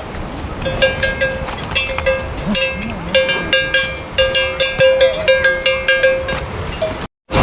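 Metal bells on grazing livestock clanking irregularly, many overlapping strikes, each ringing briefly. The sound cuts off abruptly near the end.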